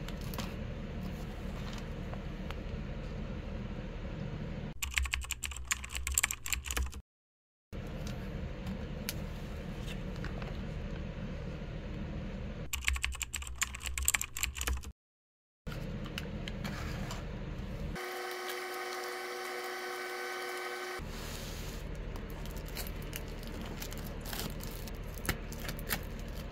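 Foil-and-plastic snack pouches crinkling and rustling as they are handled, with two louder spells of crackling. Partway through, a steady pitched tone sounds for about three seconds, and the sound drops out briefly twice.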